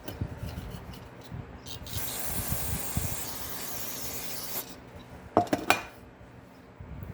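Rubbing and scraping on metal brake parts during a drum brake wheel cylinder rebuild, with a steady hiss for about two and a half seconds in the middle. Two sharp clicks come near the end.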